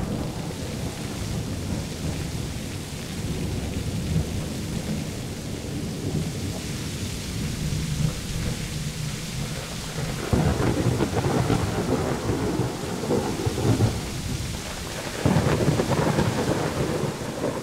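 Thunderstorm: steady rain with low rolling thunder. The thunder swells louder a little past halfway and again near the end.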